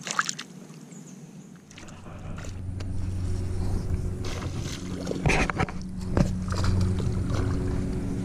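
A motor hums steadily, coming in about two seconds in and growing louder. A few sharp clicks and knocks sound over it.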